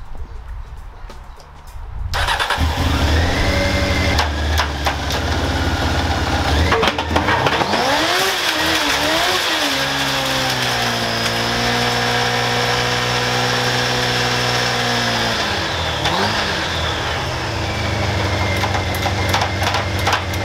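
Honda CBR600 motorcycle engine driving a giant home-built blender: it catches about two seconds in, revs up with a rising whine, holds a high steady speed, then drops back to idle near the end. A couple of sharp knocks sound as it gets going.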